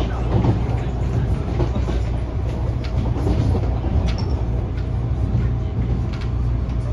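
MTR Adtranz-CAF electric multiple unit running along the line, with a steady low rumble of wheels and traction equipment and a few faint clicks.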